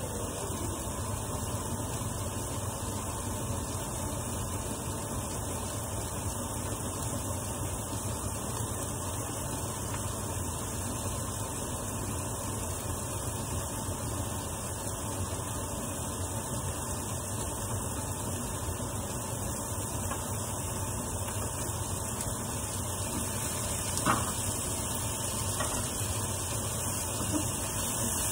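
Onions and cherry tomatoes sautéing in oil in a frying pan over a gas burner, a steady sizzling hiss, with a sharp click near the end.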